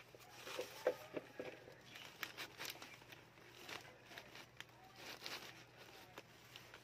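Plastic wrapping and satin ribbon of a flower bouquet rustling and crinkling as they are handled, in irregular short crackles.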